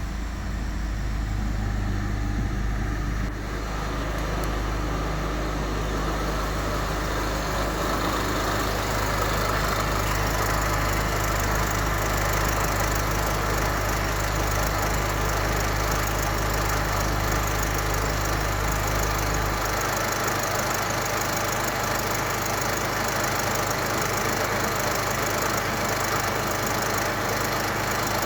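Mercedes OM654 2.0-litre four-cylinder diesel idling steadily just after a cold start. Its deep low hum eases about two-thirds of the way through.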